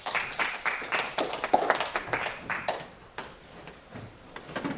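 A small group of people applauding, the separate hand claps dense for about three seconds and then thinning to a few scattered claps.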